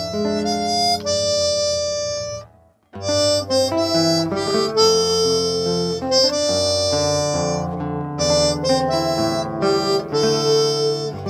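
Harmonica playing a melody in held notes, with lower notes sounding underneath. The music breaks off for a moment about two and a half seconds in, then resumes.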